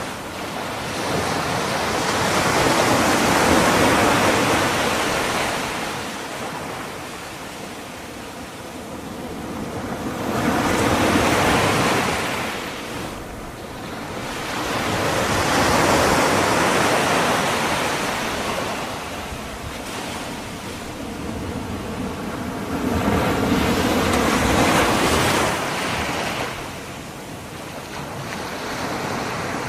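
Ocean waves sound effect: surf washing in and drawing back, each wave swelling up and fading away over several seconds, four or five times.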